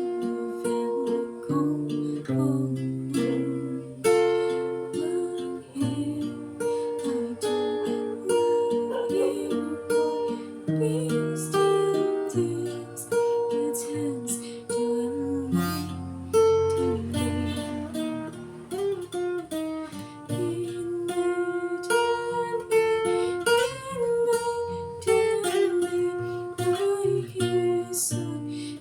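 Music led by a plucked acoustic guitar, with held melody notes and a low bass line, played without words.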